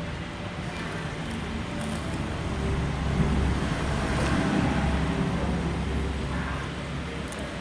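Road traffic going by: a steady low rumble that swells as a vehicle passes, from about three seconds in, then fades.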